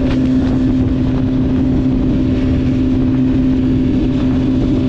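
BMW sport bike's engine running at a steady speed while the bike cruises down the road, its pitch holding even with no revving.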